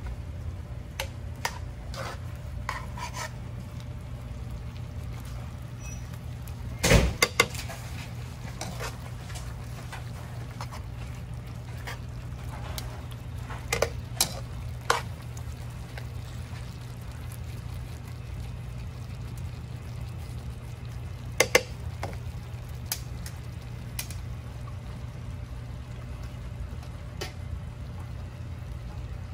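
Metal tongs clinking and scraping against a skillet of steak and vegetables in tomato sauce as it is stirred, with a few sharper metal clanks, the loudest about seven seconds in, over a steady low hum.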